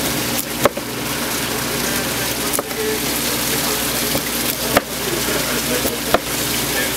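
Knife cutting a kingfish into steaks, chopping through the backbone with four sharp knocks on the cutting table a second or two apart, over a steady rush of water.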